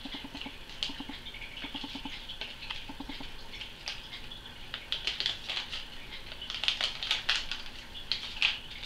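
Paper sachet of baking powder crinkling and rustling as it is tipped and shaken over a plastic mixing bowl: a string of small crackles that gets busier in the second half.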